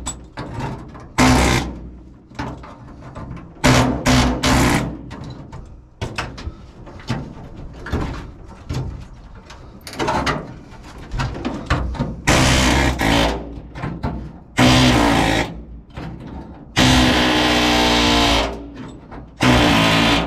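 Pneumatic air hammer with a chisel bit chattering against the sheet-steel cab floor in short bursts of a second or two, the longest burst near the end, as it cuts out the spot welds that hold a floor channel.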